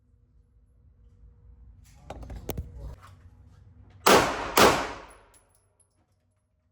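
Some handling clatter with a sharp click, then two pistol shots about half a second apart, ringing briefly in an indoor range.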